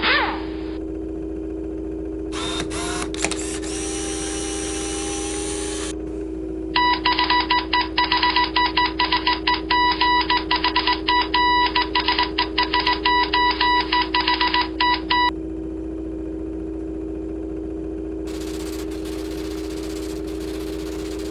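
Synthesized computer sound effects over a steady low electronic drone: a short falling sweep at the start, then from about seven to fifteen seconds in a fast run of stuttering electronic data beeps, several a second, and a hiss of static in the last few seconds.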